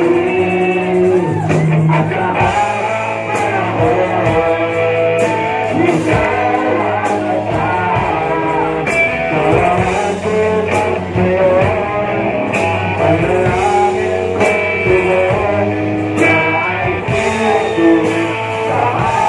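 Live rock band playing a song: sung vocals over electric guitars and drums.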